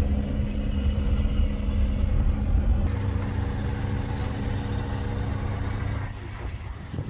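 A car driving on a dirt road, heard from inside the cabin: a steady low engine and road rumble with a faint hum. The sound changes abruptly about three seconds in.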